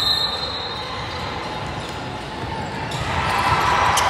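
Game noise on an indoor court: a ball bouncing amid the general hubbub of players and onlookers.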